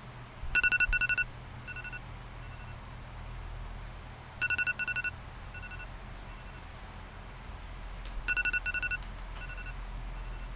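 Electronic wake-up alarm beeping: a quick run of high, shrill beeps followed by a few fainter ones, repeating about every four seconds, three times.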